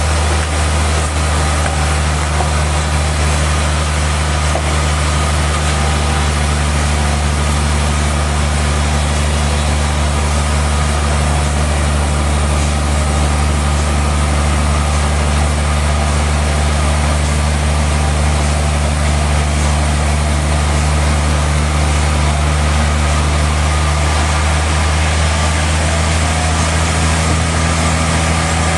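Sawmill machinery running steadily: a constant low drone with an even hiss above it.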